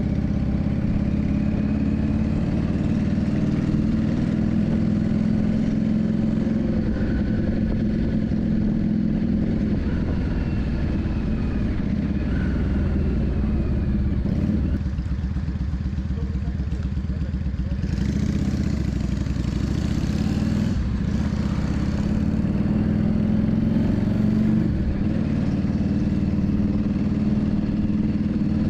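Yamaha Drag Star 400's V-twin engine running steadily, its pitch drifting up and down with the throttle. A rushing hiss rises over it for a few seconds past the middle.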